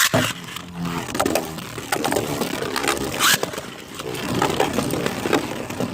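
Beyblade spinning tops launched into a plastic stadium, whirring and scraping as they spin, with a sharp snap at the launch and repeated clacks as they collide, the loudest hit about three seconds in. One of them is a 3D-printed Beyblade.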